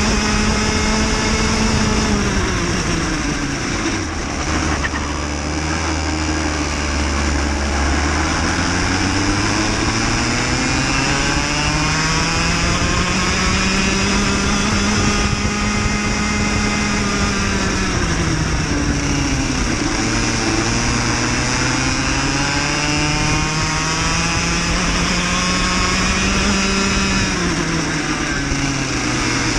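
Cadet racing kart engine heard from on board at racing speed, its revs dropping sharply about three seconds in, staying low for a few seconds, then climbing back up; it drops and climbs again twice more, about twenty seconds in and near the end, as the kart slows for corners and accelerates out of them.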